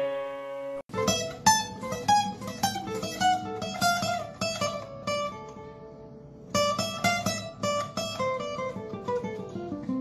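Background music: a tune of picked guitar notes. It starts just after an earlier piece cuts off, thins out about halfway, then picks up again.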